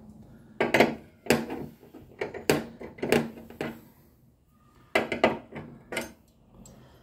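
Metal hand tools clinking and knocking: a wrench and sockets handled at a bonnet gas-strut mount. About eight sharp knocks come at uneven intervals, with a short pause just past the middle.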